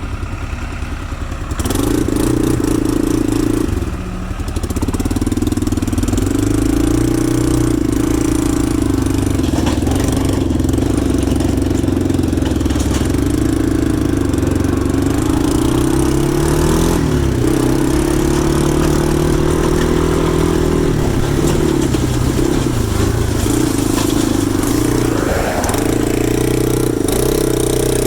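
Case 580E backhoe's diesel engine running steadily, with its pitch dipping and rising slightly a few times as the machine is worked.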